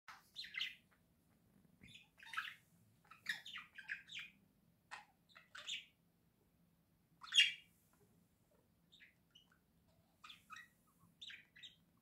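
Budgerigars chirping and chattering in short, irregular chirps, the loudest about seven and a half seconds in.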